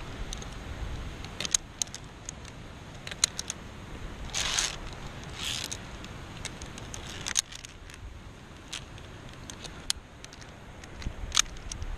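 Metal carabiners of a via ferrata lanyard clinking and scraping against the steel safety cable and its clamps, many sharp irregular clicks, with two short rustling swishes a little before the middle and a low wind rumble on the microphone.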